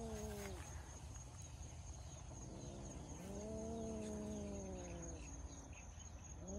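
Cat yowling: long, low, drawn-out calls that slowly fall in pitch. One call ends about half a second in, a long one of about two and a half seconds comes in the middle, and another begins near the end. These are the warning yowls of a cat that feels threatened.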